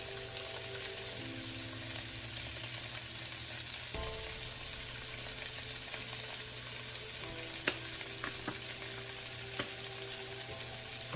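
Sausage links and diced bell pepper, tomato and celery sizzling steadily in a frying pan, with a few light clicks in the second half.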